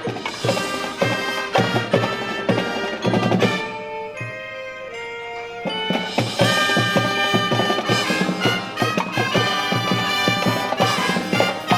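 Marching band of brass and drums playing. About four seconds in the drums drop out and a few held brass notes sound softly, then the full band with drums comes back in about two seconds later.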